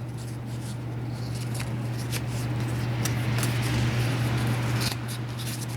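Rustling and light clicks as sandpaper and a sanding block are handled, the paper being readied to wrap around the block, over a steady low hum.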